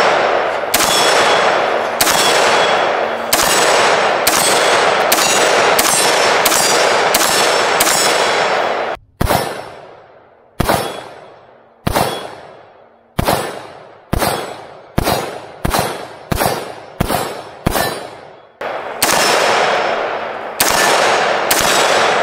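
Argos Ordnance A115 AR-15 rifle in 5.56 NATO firing a long string of semi-automatic shots, roughly thirty, each with a long echoing tail, coming faster, two or three a second, in the second half. Steel targets ring from the hits.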